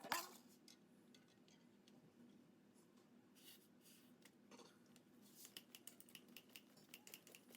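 Near silence, with a run of faint light clicks in the second half.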